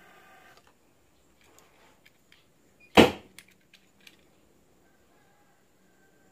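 A single sharp knock of hard PVC pipe parts being handled and fitted together, about three seconds in, followed by a few light clicks.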